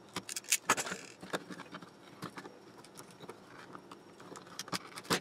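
Irregular clicks and light clatter as a CTEK Multi XS 3600 battery charger's metal casing, wiring and circuit boards are handled and pulled apart, with a quick run of taps in the first second or so and a sharper click at the very end.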